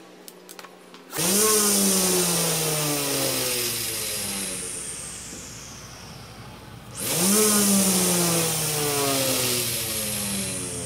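A 775 DC motor on a homemade PVC push mower spins its metal cutting blade up with a sudden loud whine about a second in; the pitch jumps, then slowly sinks. About seven seconds in it surges again the same way. The mower shakes as it runs, and the builder says the vibration comes from the wheels, not the motor.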